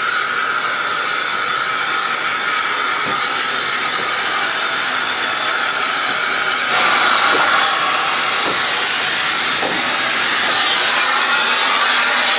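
SE&CR O1 class 0-6-0 steam locomotive rolling slowly in with a steady hiss of steam and a few faint knocks from the wheels; about seven seconds in the hiss gets louder and fuller.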